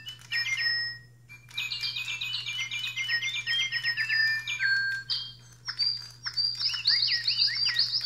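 Three electronic toy robot birds chirping and tweeting together in sync, their small speakers giving rapid synthetic bird calls. There is a short pause about a second in, and the calls turn higher and more whistled past the middle.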